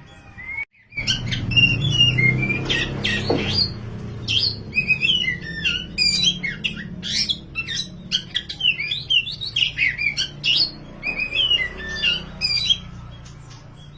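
Oriental magpie-robin of the black kacer wulung form singing in full voice: a fast, varied run of whistles and chattering notes. It starts about a second in, just after a brief dropout, and stops about a second before the end, over a low steady hum.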